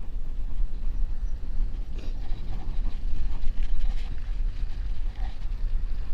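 Wind rumbling steadily on the microphone of a camera riding on a moving bicycle, over the noise of the tyres rolling on packed snow and ice.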